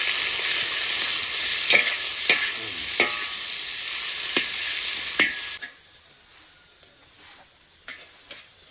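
Raw meat sizzling loudly in a large wok while a metal spatula stirs it, scraping and clanking against the pan about five times. About five and a half seconds in, the sizzle cuts off abruptly, leaving only faint background and a couple of small clicks.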